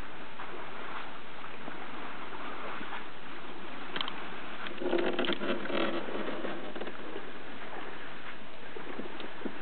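Steady noise of a small boat on the water, with a brief pitched sound about five seconds in and a few light clicks.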